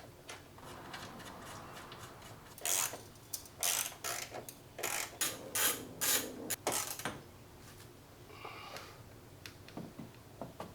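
Metal clicks and scrapes of a bumper bracket and its bolts being fitted by hand, in a quick irregular string through the middle.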